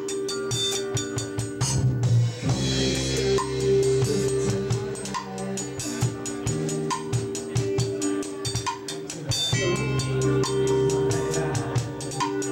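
Live rock band playing with no singing. The drum kit keeps up busy cymbal, snare and bass-drum hits over long held bass and chord notes. The held notes break off briefly about two seconds in and again about nine and a half seconds in.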